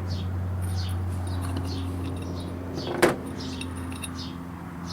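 One sharp metallic clink of loose hardware or a wrench about three seconds in, against a steady low hum and a bird chirping about twice a second.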